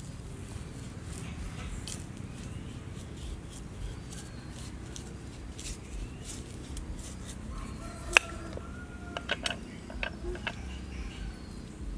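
A knife cutting a raw sweet potato over a wooden chopping board, with small cutting clicks, then one sharp knock about eight seconds in as the blade goes through and strikes the board, followed by a few quicker knocks. A chicken clucks in the background.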